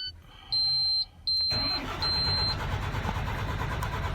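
Three short high electronic beeps, and over them, about a second and a half in, the MAN TGA 26.480's inline-six diesel cranks and catches, then keeps running steadily.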